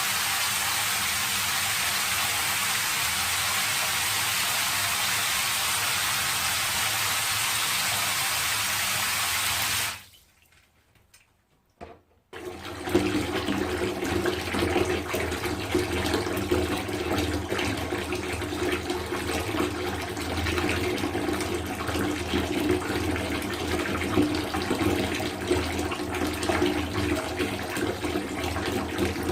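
Water falling into a bathtub. First comes a steady hissing stream, which cuts off about a third of the way in. After a couple of seconds of near silence, a busier, uneven splashing of water into the tub takes over.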